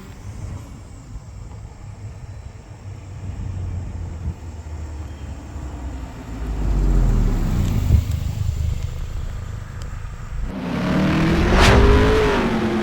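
Toyota GR Corolla's turbocharged 1.6-litre three-cylinder engine running with a low rumble, its note swelling and gliding in pitch around the middle. Music comes in about ten seconds in.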